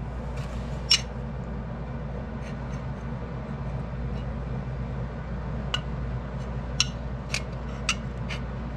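Light metal-on-metal clicks and taps as a bent Yamaha ATV rear brake caliper mounting bracket is handled against a steel square: one about a second in, and several more in the last three seconds. A steady low hum lies under them.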